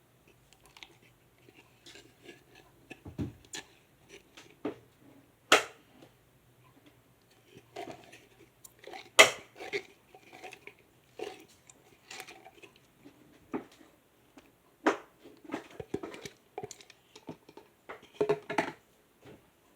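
Clear slime being squeezed and pressed by hand, making irregular wet clicks and pops. Two sharper pops stand out, about five and a half and nine seconds in.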